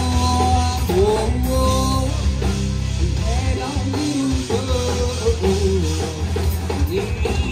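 Live rock band playing: electric guitar, bass and drum kit through a PA, loud and continuous.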